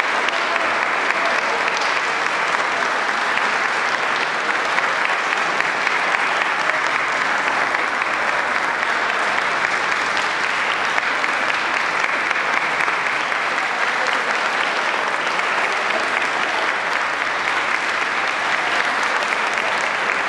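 Audience applauding: steady, sustained hand-clapping by a seated crowd.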